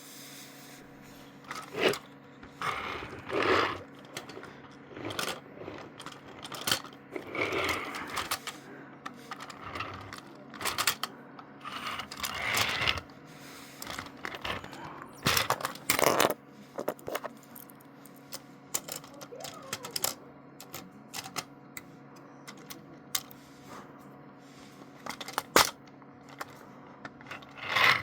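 Irregular clicks, taps and brief rustles of small objects being handled, over a steady low hum.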